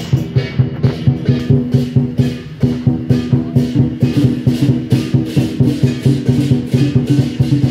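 Procession percussion music for the dragon dance: drums and cymbals beating a fast, steady rhythm over a sustained ringing tone.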